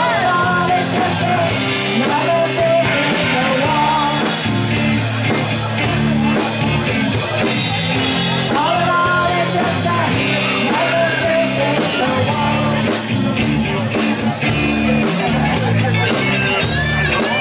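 Live rock band playing: electric guitar, acoustic guitar, bass guitar and drums, with a gliding lead melody over steady bass notes and regular cymbal ticks.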